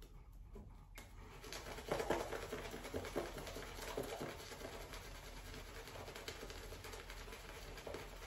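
Shaving brush whipping shaving-soap lather in a bowl: a soft, continuous wet swishing and patter, busiest around two seconds in and then steadier.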